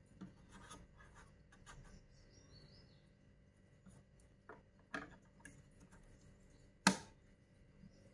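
Plastic dust filter and slatted vent cover of a compact projector handled in gloved hands and fitted onto its side vent: light scratching and rubbing of plastic with a few soft clicks, then one sharp click near the end as the cover snaps into place.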